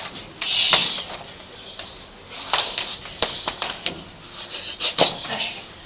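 Two Muay Thai fighters sparring in the clinch: several sharp smacks of strikes landing, with scuffling and short hissing bursts between them.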